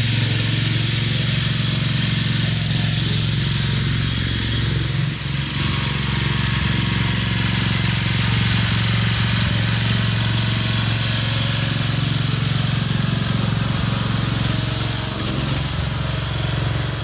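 Briggs & Stratton 17.5 HP engine of a Craftsman LT2000 lawn tractor running steadily as the tractor is driven, an even hum with a brief dip about five seconds in. The engine is running smoothly after its service.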